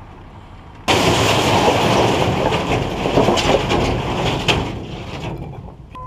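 Dump trailer unloading broken concrete: a sudden loud rush of rubble sliding and crashing out of the raised bed begins about a second in, with sharp knocks of big chunks, and dies away near the end.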